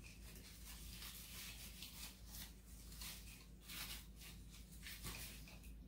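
Faint, repeated rustling and scraping of artificial greenery and faux lemon picks as they are pushed and worked into a tiered tray arrangement.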